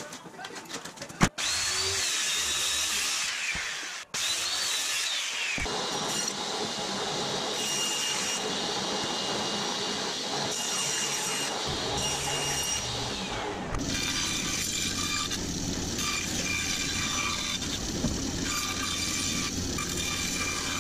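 Power saws cutting a sheet of OSB: a table saw running and cutting, then a band saw. The sound changes abruptly several times between short cut-together clips.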